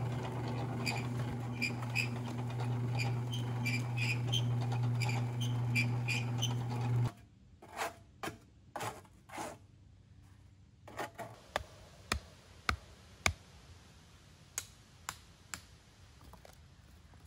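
Small portable cement mixer running with a steady hum and a regular clattering rattle from its tilted drum as mortar is emptied, switching off abruptly about seven seconds in. Then a few scraping knocks as mortar is scraped out of the drum, followed by scattered sharp taps.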